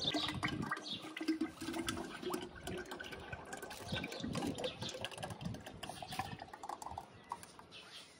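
White liquid poured from a plastic tub into a glass jar, splashing as the jar fills; the pouring fades out near the end.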